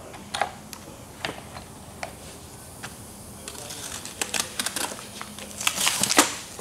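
Light clicks and clinks of new differential bearings, races and their boxes being handled on a metal workbench, scattered at first and coming closer together in the last couple of seconds.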